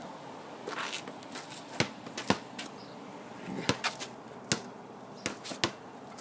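Irregular light clicks and knocks, about a dozen sharp ones spread unevenly over a few seconds.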